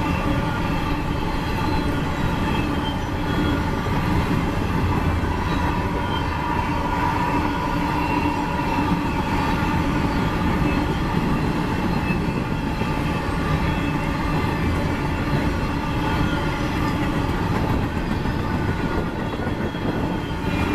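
Empty coal train rolling past, its cars' wheels running steadily on the rails.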